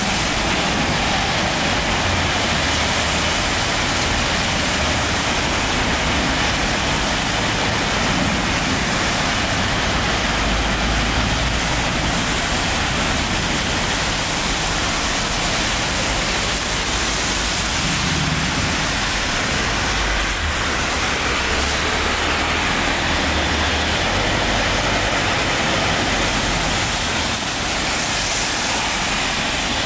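Rain and road traffic on a wet road: a steady hiss of rain and tyres on the wet surface, with the low rumble of passing vehicles' engines swelling and fading underneath.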